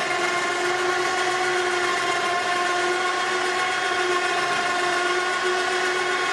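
Electric winch motor of a truck-mounted propane cart rack running with a steady, even-pitched whine as it lowers the rack and cart from the bumper.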